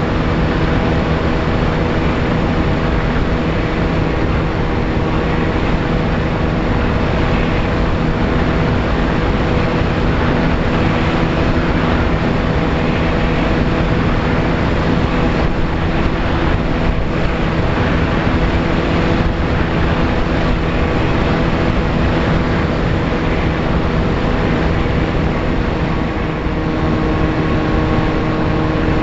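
A VAS Chimera FPV plane's electric motor and propeller run at a steady pitch in flight, under a heavy rush of wind on the microphone.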